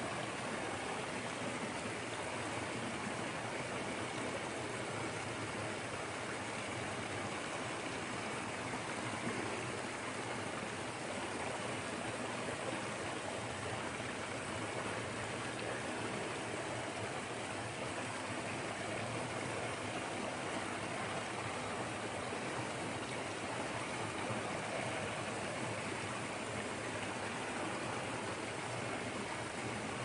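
Small creek waterfall pouring over a fallen log into a shallow pool: a steady, unbroken rush of falling water.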